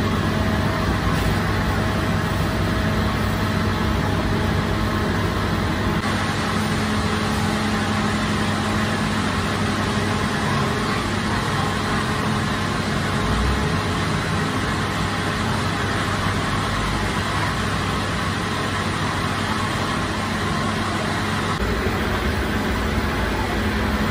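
Steady, loud mechanical drone of bakery machinery: a low hum under an even rushing noise.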